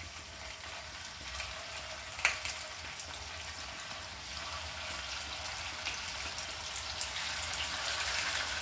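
Rice-and-potato tikkis shallow-frying in hot oil in a pan: a steady sizzle with a few sharp clicks, the loudest about two seconds in, growing slightly louder over the second half.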